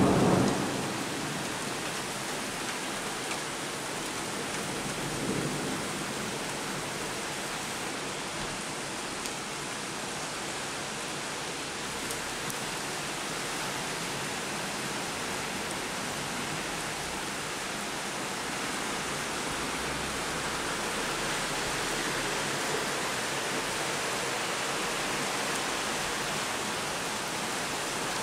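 Heavy rain pouring down and floodwater rushing along a street, an even, steady hiss. A low rumble of thunder dies away in the first second.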